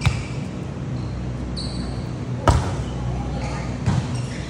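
Volleyball being struck in play: sharp smacks of hand on ball, the loudest about two and a half seconds in, with lighter hits at the start and near four seconds. A brief high squeak comes just before the loudest hit.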